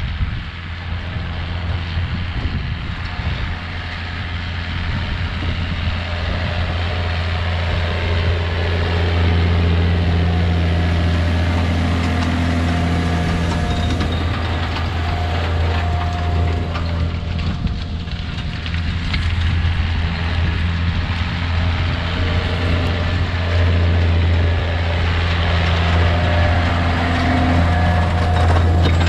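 Challenger MT635B tractor's Sisu 7.4-litre six-cylinder diesel running steadily under load while pulling a nitrogen applicator, a deep steady drone that grows louder over the first ten seconds or so.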